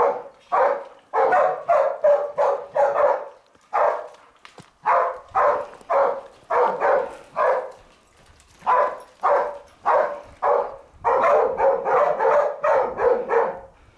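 Hunting dogs barking hard and fast in quick runs of sharp barks, with short lulls between the runs, as they hold a wild boar at bay in a rock hollow.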